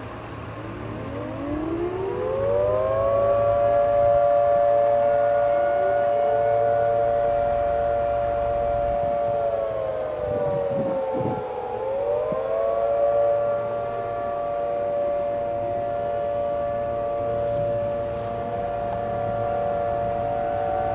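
Several outdoor warning sirens sounding together during a monthly test. They wind up over about three seconds and then hold a steady wail of overlapping pitches. Near the middle they sag in pitch briefly and climb back to full tone.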